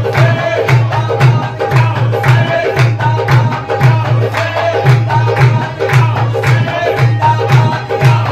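Live qawwali music: a fast, steady hand-drum beat under held melody notes.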